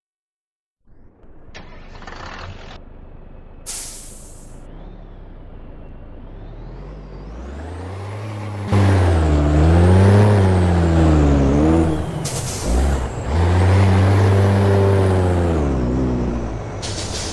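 Scania V8 diesel truck engine with a straight-through exhaust, running low at first, then revved up and down twice with a loud, deep exhaust note from about nine seconds in. Short bursts of air hiss come between the revs.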